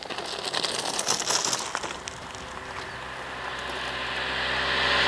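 A car approaching along the road, its engine hum and tyre noise growing steadily louder through the second half. In the first two seconds, crunching and clicking from a mountain bike pulling onto the gravel shoulder.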